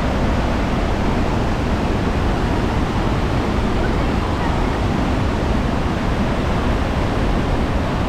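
Låtefossen waterfall pouring down a rocky cascade: a loud, steady rush of falling water with a deep rumble underneath.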